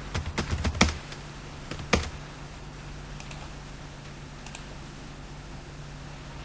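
Computer keyboard keystrokes: a quick run of key presses in the first second, then one louder key press about two seconds in. After that a few faint clicks over a steady low hum.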